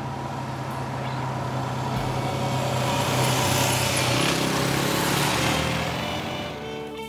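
Adventure motorcycles approaching and passing on a dirt road. The engine sound swells to its loudest about three to five seconds in, drops in pitch as they go by, then fades.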